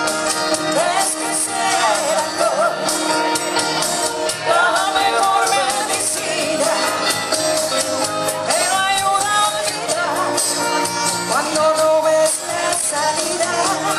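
Latin band playing upbeat dance music with singing and a steady percussion beat.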